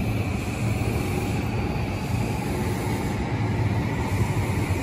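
JR East E233-0 series electric train standing at the platform with its doors open, giving a steady low hum and rumble.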